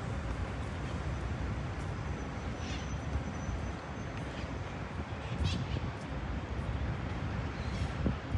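Urban park ambience: a steady low rumble of road traffic, with a few brief high chirps, likely birds, about three and five seconds in.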